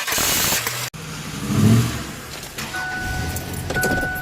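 A Ford Crown Victoria Police Interceptor's V8 engine running loud just after being cranked to life on a banged-on starter. It is cut off after about a second. Then an engine revs briefly, and a car's two-tone electronic warning chime sounds on and off.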